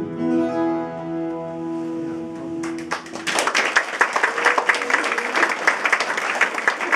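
The final chord of the song rings out on guitars and fades. About three seconds in, an audience breaks into applause, louder than the fading chord.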